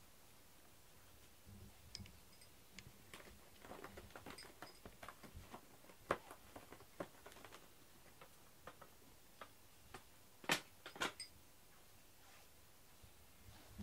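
Quiet, scattered clicks and light taps from a cat shifting and settling down in a cardboard box, with the loudest pair of taps near the end.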